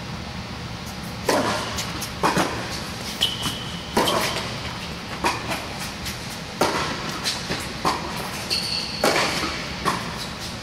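Tennis rally on an indoor court: sharp racket strikes and ball bounces about once a second, each echoing in the large hall. A couple of brief high squeaks and a steady low hum sit underneath.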